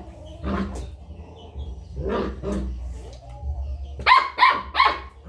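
Dog barking: a few separate barks, then a quick run of four sharp barks about four seconds in.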